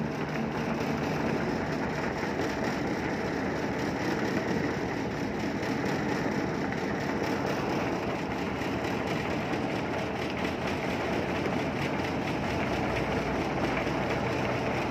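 Candlenut sorting sieve running: a steady, dense rattling clatter of candlenuts tumbling over its motor-driven pipe-bar screen.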